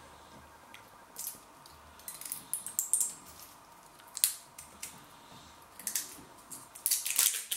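Small plastic crackles and clicks as the seal and cap of a plastic hot-sauce bottle are picked at and peeled off by hand. They come in short scattered bursts, the loudest cluster near the end.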